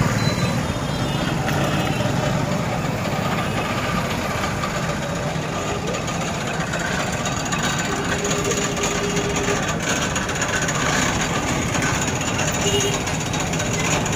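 Steady vehicle engine noise on a crowded street, with many voices talking over it.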